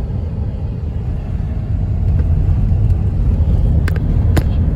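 Steady low road rumble of a car driving, heard from inside the cabin, with two short sharp clicks near the end.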